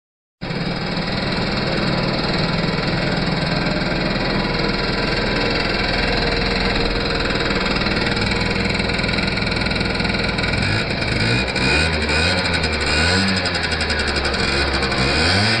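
Gilera Runner scooter engine running steadily, then revved up and down several times in the last five seconds.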